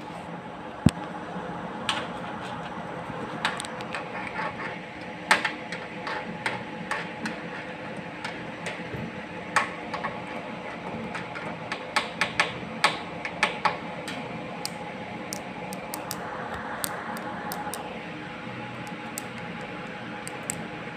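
Irregular clicks and taps, a few of them loud, from a plastic play stick and a cat's paw knocking against a laminate cabinet, over a steady faint hum. A brief soft rustle comes about three quarters of the way through.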